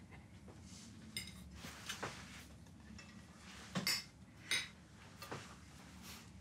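Cutlery and dishes at a dinner table: a handful of soft, separate clinks and taps of utensils against ceramic plates and cups. One clink about a second in rings briefly, and the two loudest come a little past the middle.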